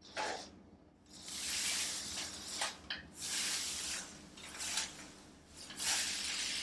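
Shredded paper packing rustling and crackling as hands dig through it in a cardboard box, in several stretches of a second or so each.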